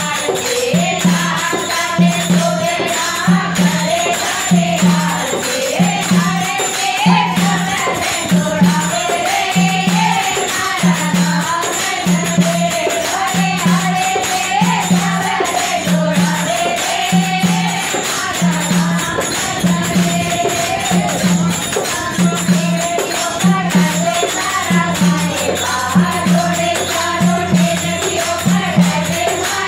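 Women singing a Rajasthani devotional bhajan to Ramdevji together, over a steady low beat about once a second.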